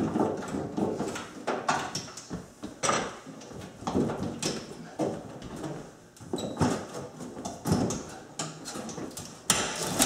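Irregular metal clunks, rattles and scrapes as the last mounting bolt of an over-the-range microwave is worked loose with a hand tool while the unit is held up.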